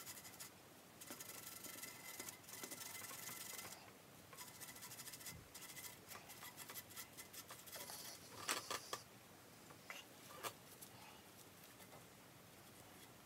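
Nylon cleaning brush scrubbing the muzzle end of a Beretta 686 over-under shotgun's steel barrels, making faint, quick scratching that is densest in the first few seconds and then comes in broken strokes. There are a few light taps or clicks about eight and ten seconds in.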